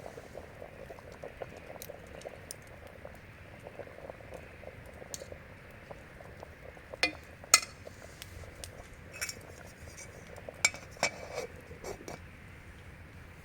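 Metal utensils clinking against camp cookware, about six sharp ringing clinks in the second half, the loudest about seven and a half seconds in. Under them a fine, steady simmering bubble that fades about halfway.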